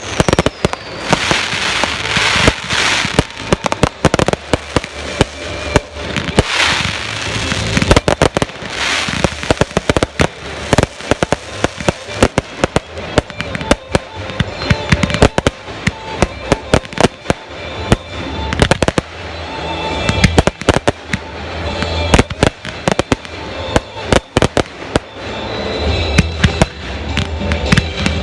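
Consumer fireworks finale barrage: rapid, overlapping volleys of sharp bangs and crackling shell bursts that never let up, with louder swells of bursts now and then.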